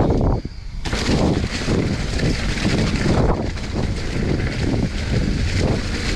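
Wind buffeting the camera microphone while a mountain bike rolls fast down a dirt trail, its tyres running over dry fallen leaves. The noise drops away briefly about half a second in, then returns.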